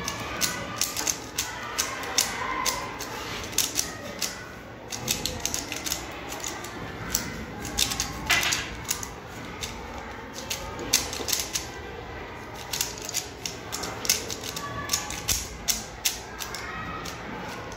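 A plastic 3x3 Rubik's-style cube clicking rapidly and irregularly as its layers are turned quickly in a timed solve.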